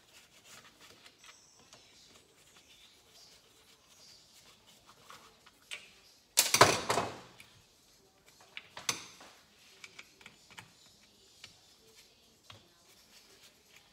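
Small, scattered clicks and ticks of a hand screwdriver backing out Phillips screws and of small metal parts being handled on a workbench. About six and a half seconds in there is a loud clatter of a tool being put down or picked up on the bench, and a smaller knock about nine seconds in.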